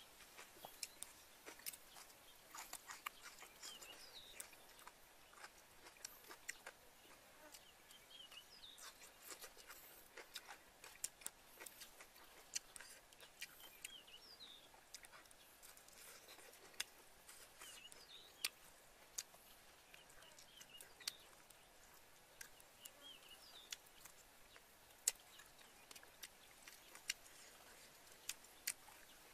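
Eating sounds: a metal spoon clicking and scraping against a plate, with soft chewing, as irregular sharp clicks over a quiet background. Faint high chirps come and go behind them.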